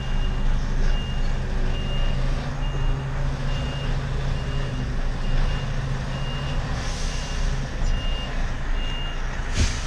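A semi-truck's reversing alarm beeps steadily, a little more than once a second, over the truck's diesel engine running low. The beeping stops near the end, followed by a short sharp burst of noise.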